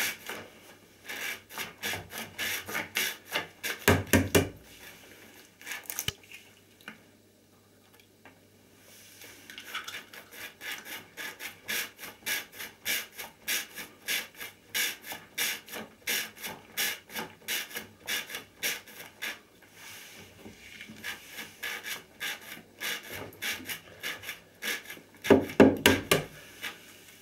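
Sneaker soles rubbing and scuffing against a slick, egg-smeared smooth surface in quick repeated strokes, about two to three a second. They pause for a few seconds after about six seconds in, and there is a heavier shuffle of the shoes about four seconds in and again near the end.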